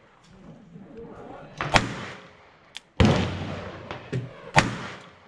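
Gunshots: three loud reports about a second and a half apart, the middle one trailing off slowly, with a few fainter sharp cracks between them.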